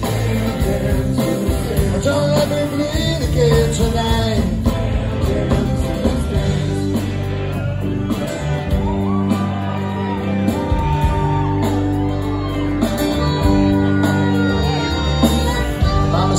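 Live rock band playing an instrumental passage: guitars over bass and drums, heard from the audience in a large hall.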